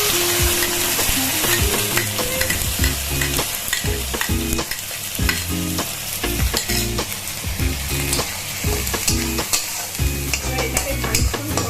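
Onion, green chilli and garlic paste frying in hot oil in a kadai, sizzling steadily, with a spatula scraping and knocking against the pan as it is stirred.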